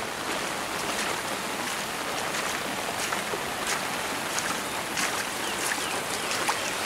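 Steady hiss of light monsoon rain and running floodwater, with scattered close raindrops ticking irregularly.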